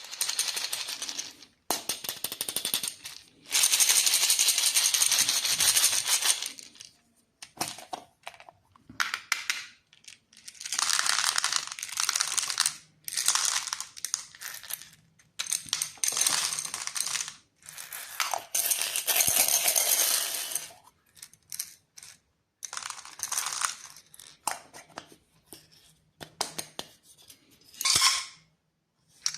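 Plastic candy wrappers being crinkled and handled in repeated bursts of one to three seconds, with short pauses and a few sharp clicks between them.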